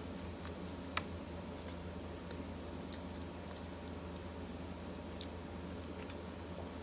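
Faint eating sounds close to the microphone: scattered soft mouth clicks from chewing, one a little sharper about a second in, over a steady low hum.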